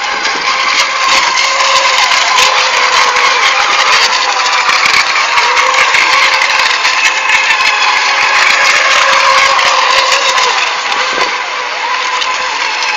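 Electric FSR-E racing model boats running at speed: a continuous high motor-and-propeller whine from several boats at once, its pitch wavering slightly as they race.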